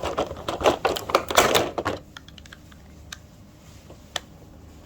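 Plastic toy pieces and packaging being handled: a rapid flurry of clicks and crinkling for about two seconds, then a few separate clicks.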